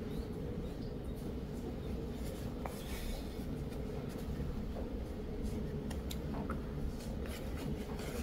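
Needle and embroidery thread being drawn through cotton cloth during lazy daisy stitching: faint soft rubbing swishes and a few light ticks, over a steady low hum.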